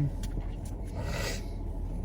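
Steady low rumble of a car's cabin, with a soft thump at the start and a brief rush of noise about a second in.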